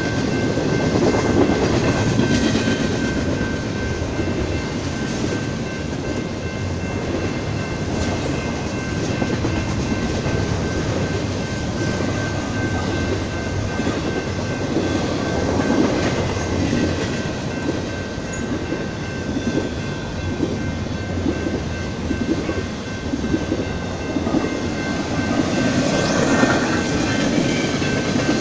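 A Union Pacific double-stack container train's cars rolling past, their wheels rumbling on the rails without let-up. A steady high whine runs through it.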